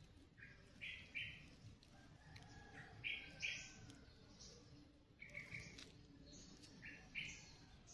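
Faint bird calls: short chirps, mostly in quick pairs, repeating every second or two.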